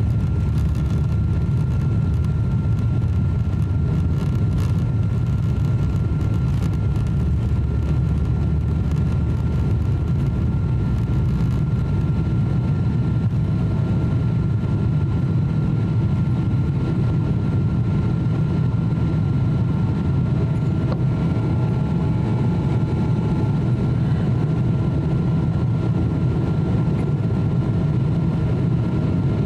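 Boeing 777-200 airliner's engines at takeoff power during the initial climb, heard inside the cabin: a steady deep rumble with a thin, steady high whine above it.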